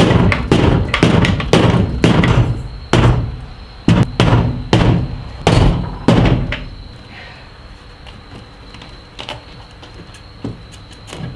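A hammer beating on the bent sheet-metal lip of a Nissan 240SX's taillight opening, striking it back into shape so the taillight will fit. About fifteen quick, uneven blows land over roughly six seconds, then stop, and only a few faint clicks follow.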